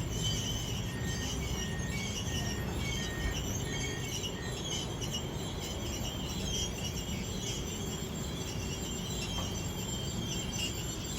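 Wagons of a long intermodal container freight train rolling past, a steady rumble with high wheel squeal over it and a short squeak repeating about twice a second for the first few seconds.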